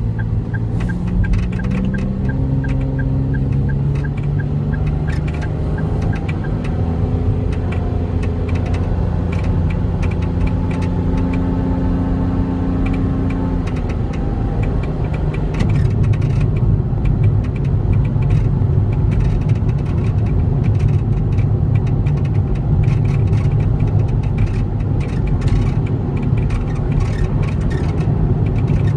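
Cab of a Daihatsu Hijet Truck Jumbo kei truck on the move: the small engine and road noise run steadily, with the engine note shifting as the truck changes speed. Over it comes a frequent clattering of clicks and knocks, the rattle and creak from behind the driver's seat that the owner traces to a loose tailgate.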